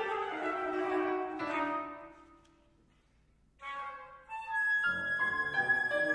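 Flute and piano playing a classical chamber piece in a free tempo. A phrase dies away about two seconds in, a pause of about a second and a half follows, then the music starts again sharply, with a long held high flute note.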